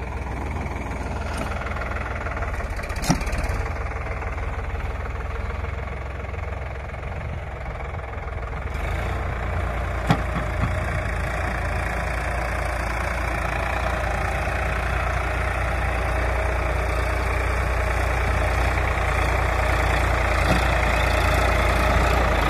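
Sonalika tractor's diesel engine running steadily while the tractor works a rotavator through sandy soil, growing gradually louder over the second half as the tractor comes back toward the camera. Two sharp clicks stand out, about three and ten seconds in.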